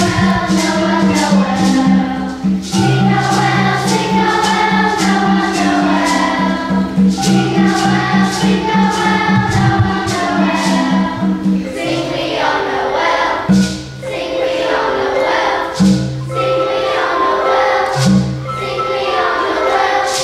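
Children's choir singing with instrumental accompaniment, over a steady beat from a shaker-type percussion instrument. About twelve seconds in, the low accompaniment thins to separate notes.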